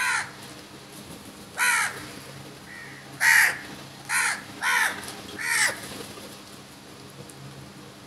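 House crows cawing: six short caws within about six seconds, four of them close together in the middle.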